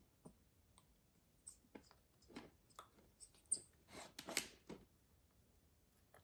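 Faint, irregular clicks and taps from a white cockatoo moving about and feeding at a plastic tub of food bowls, most of them bunched in the middle stretch.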